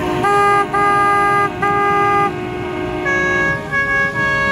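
Boat horns sounding in blasts: one horn gives three blasts, then a second horn at a different pitch answers with three shorter blasts about three seconds in.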